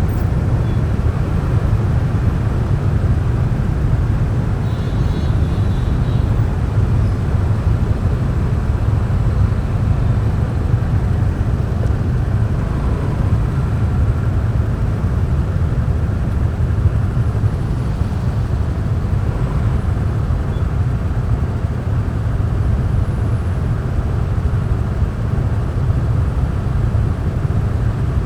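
Motorbike riding noise picked up by the rider's action camera: a steady low rumble of engine and road noise that does not let up.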